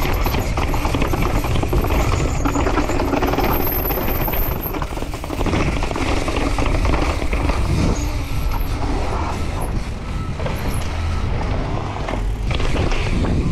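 Mountain bike rolling fast down stone stairs and over paving slabs, with a continuous rattle of the bike and tyres knocking over the step edges. Wind rushes over the microphone throughout.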